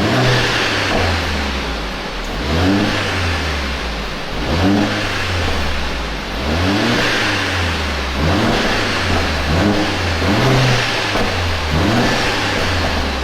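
Mercedes-AMG A45 S's 2.0-litre turbocharged four-cylinder, in race mode, revved lightly in about seven short throttle blips roughly two seconds apart, each rising and dropping back to idle.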